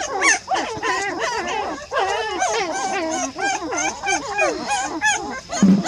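A litter of young puppies whining and squealing, many high, wavering calls overlapping without a break, with a brief louder, deeper sound near the end.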